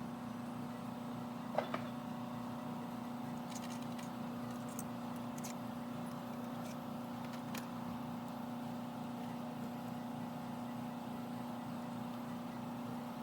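A steady mechanical hum, with one sharp click about one and a half seconds in and a few faint ticks after it.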